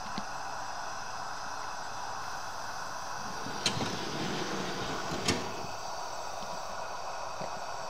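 Steady hiss from a gas-fired live-steam model tram with its boiler in steam. Two sharp clicks, about a second and a half apart, come as the model is handled on its metal tray.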